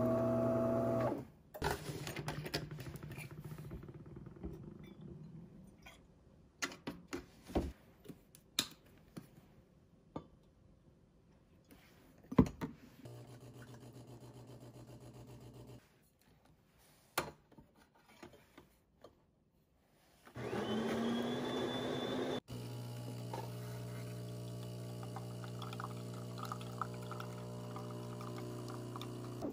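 De'Longhi automatic bean-to-cup espresso machine running through a brew cycle. It hums briefly at the start, clicks, and hums steadily for about three seconds during the automatic spout rinse. About twenty seconds in, a whir rises in pitch for about two seconds and stops with a click, then a steady pump hum runs as coffee dispenses.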